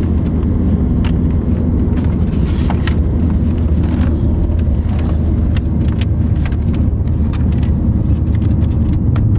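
Steady low drone of road and engine noise inside the cabin of a moving car, with scattered light clicks and taps throughout.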